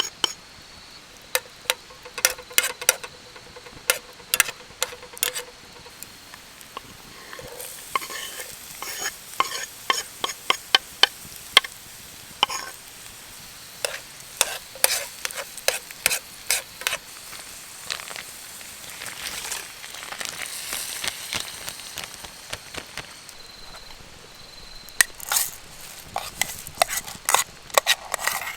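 Food sizzling in a frying pan while a utensil stirs it, clicking and scraping against the pan many times.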